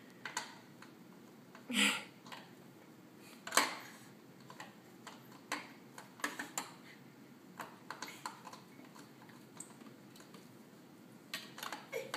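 Scattered plastic clicks and knocks from a toy cement mixer truck as a baby handles it and turns its drum.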